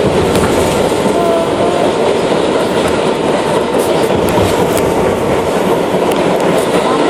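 New York City subway train running on the rails, a loud steady rumble and clatter of wheels and track, with a faint thin squeal held underneath.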